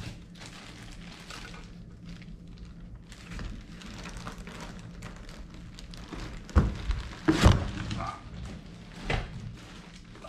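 Plastic wrapping crinkling and foam packing scraping as a bagged model wheel loader is handled and lifted out of its foam-lined box. A few knocks come about six and a half to seven and a half seconds in, the loudest about seven and a half seconds in, with a smaller one about nine seconds in, over a low steady hum.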